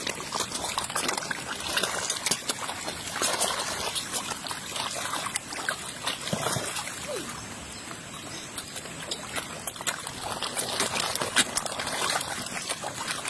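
A crowd of large fish splashing and thrashing at the water's surface as they jostle around a hand offering food, a continuous irregular jumble of splashes and slaps.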